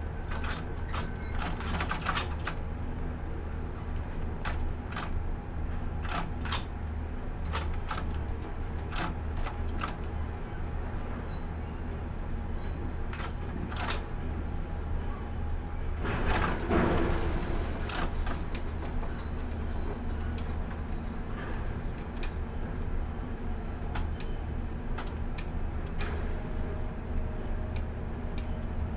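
Container crane machinery running with a steady low hum while a container is lowered into a ship's hold. Scattered sharp clicks and knocks are heard throughout, and a louder rush of noise comes about sixteen seconds in.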